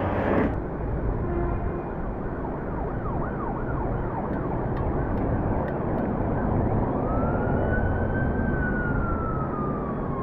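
An emergency-vehicle siren wailing faintly over steady wind and road rush from riding a bicycle. Near the end it becomes a clearer long wail that rises and then slowly falls.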